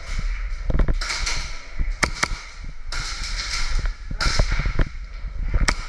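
Airsoft gunfire from HPA-powered guns: a handful of sharp single pops, two close together about two seconds in and one near the end, over a steady rushing noise.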